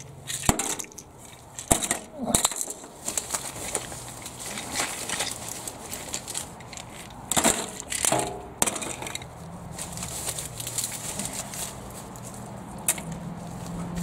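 Plastic medicine bottles, tubes and containers knocking and clattering against each other and the floor of a microwave oven's cavity as they are put in by hand: a handful of separate sharp knocks, with a short cluster about eight seconds in.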